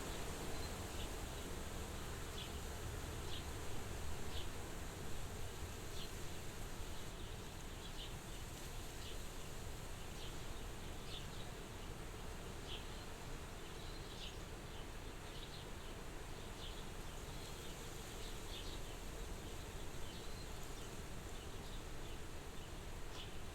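Soft, steady wind at a window, with short high chirps repeating irregularly about once a second over it.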